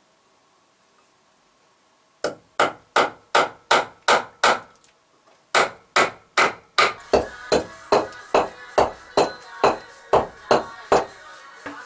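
Hammer blows driving nails into wood, about two to three strikes a second: a run of seven, a short pause, then a longer run of about fourteen.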